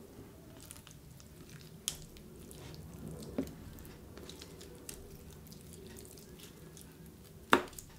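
Raw chicken pieces being handled and rubbed with seasoning in a metal baking tray: soft wet squishing with small scattered clicks, and one sharp knock near the end.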